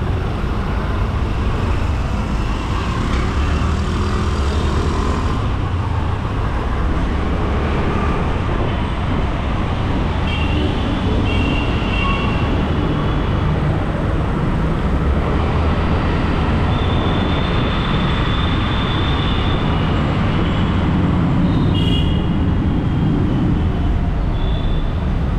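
Steady road traffic noise, vehicles passing on a city street, heard from a moving bicycle, with a few short high tones now and then.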